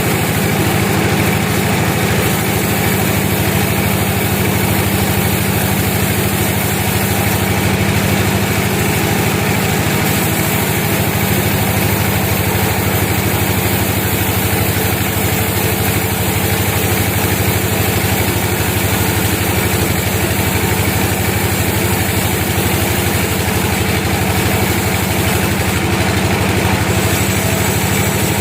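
Sawmill machinery's engine running steadily with an unbroken low hum.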